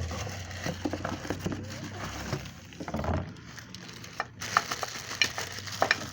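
Handling noise: scattered clicks, knocks and rustling as parts are handled, with a cluster of sharper clicks near the end.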